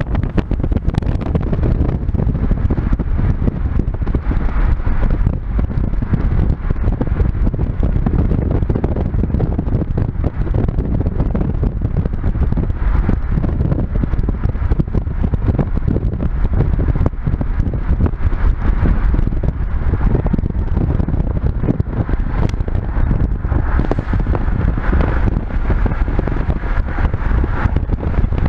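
Wind buffeting the microphone: a loud, continuous, rough rumble with no breaks.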